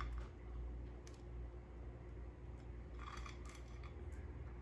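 Faint kitchen handling sounds: a light click at the start and another about a second in, then a brief crisp scraping about three seconds in, as a plate and a slice of toast are handled on the counter.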